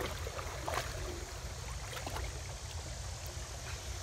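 Shallow creek trickling over a stony bed, with a few small splashes as a husky wades in it, under a steady low rumble.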